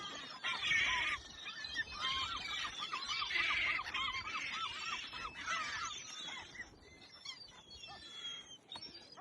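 A flock of seagulls calling, one bird giving a run of repeated calls about two a second over the top of other overlapping gull cries; the calling dies away near the end.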